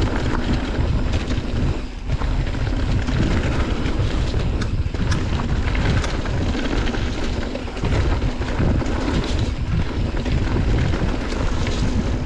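Mountain bike riding a trail: wind on the microphone over a steady rumble of tyres on the ground, with scattered clicks and rattles from the bike.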